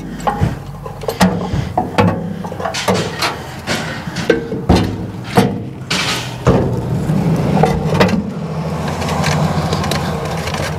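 Repeated metal clicks, clanks and knocks of battery cables and clamps being handled at the front of a tractor, over a steady low hum.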